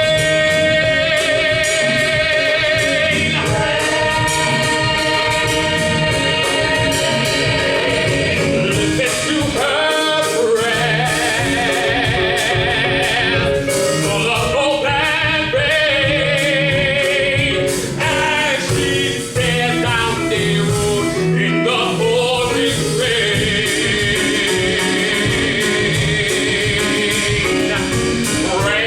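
Musical-theatre ensemble singing with instrumental accompaniment, voices holding long notes with vibrato over a steady low beat.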